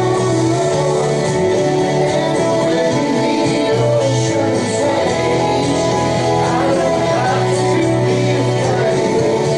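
Worship band music: guitar and bass with singing, held notes over a steady low bass line.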